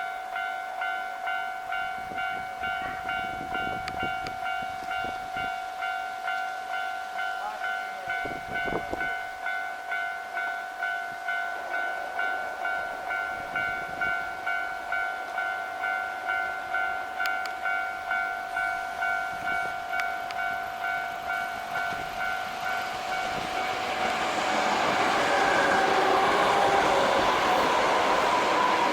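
Japanese level-crossing warning bell ringing, an electronic ding repeated in an even rhythm. About three-quarters of the way through, a passing Osaka Metro 66 series train's running noise rises and drowns it out.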